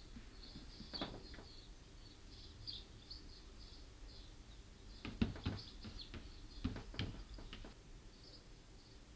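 Faint, short, high-pitched chirping squeaks coming from a cat TV video of mice playing on a television, with a few sharp knocks and taps about five to seven seconds in.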